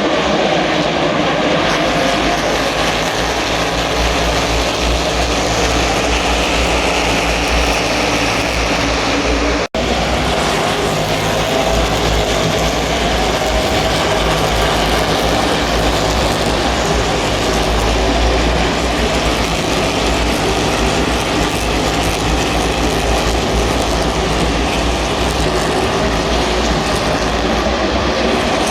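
A field of NASCAR Cup cars' V8 engines running at speed around the track, a dense, steady, loud engine sound. It breaks off for an instant about ten seconds in, then carries on.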